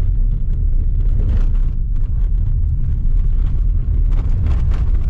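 Car driving on a dirt road, heard from inside the cabin: a loud, steady low rumble of tyres and road noise with a few bumps.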